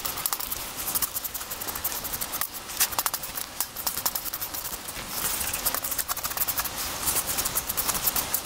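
Kitchen knife scraping the scales off a whole flounder on a wooden cutting board: a fast, uneven run of rasping scratches and clicks.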